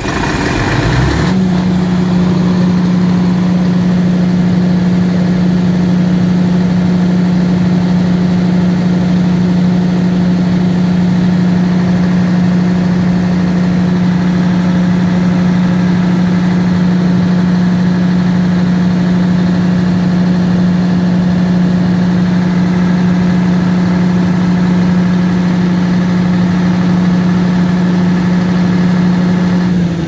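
FG Wilson standby generator's engine catching and running up to speed in about the first second, then running steadily at its governed speed with an even, unchanging hum.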